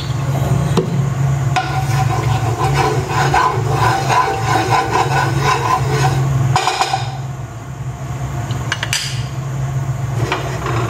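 Spatula scraping and knocking against a frying pan as it spreads cooking oil, from about a second and a half in to about seven seconds in, then a single click near nine seconds. A steady low hum runs underneath throughout.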